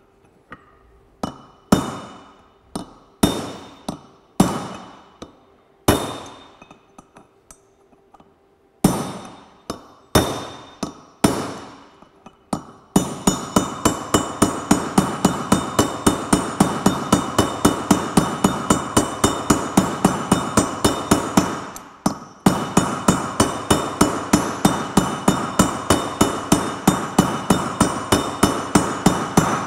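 Ball-pein hammer striking steel, tapping a new wheel bearing track down into a Land Rover hub through the old bearing track used as a drift, each blow ringing. First come single blows at uneven gaps of about a second. After that the taps run fast and even, about three a second, with one short break about two-thirds of the way in.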